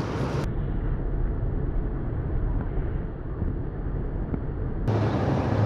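Steady low rumbling noise with no distinct events; the sound turns duller about half a second in and brighter again near the end.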